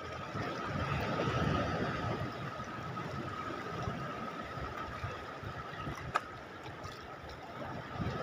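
Seawater lapping and wind noise on the microphone, with a faint steady high hum throughout and a single sharp click about six seconds in.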